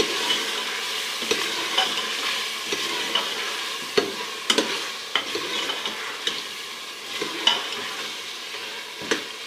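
Dumba (fat-tailed sheep) meat sizzling in ghee in a pot while it is stirred and turned with a spoon: a steady frying hiss with irregular clicks and knocks of the spoon against the pot. This is the bhuna stage, frying the meat and spices in ghee until the oil separates.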